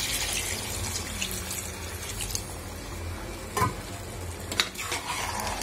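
Water poured into a pressure cooker of sautéed chicken masala, running and splashing into the hot gravy. A couple of short knocks near the end.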